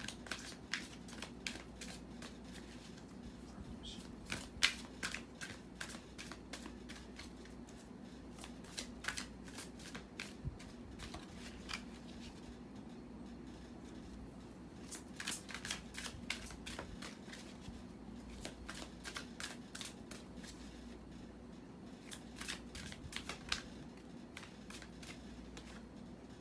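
A deck of oracle cards being shuffled by hand, in four bursts of quick clicking a few seconds apart. A steady low hum lies underneath.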